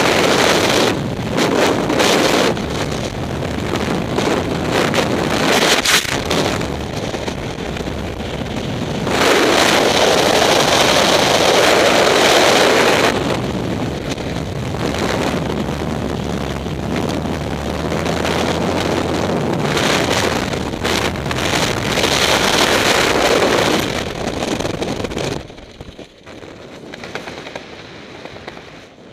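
Freefall wind rushing over a skydiver's helmet-camera microphone, loud and surging in waves. It drops away sharply near the end as the parachute opens and the fall slows.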